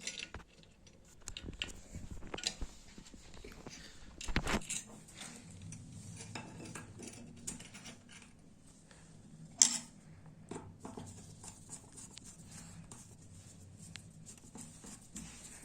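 Small metal parts of a clothes iron clicking and clinking as it is reassembled by hand, with one sharp, loud click about ten seconds in.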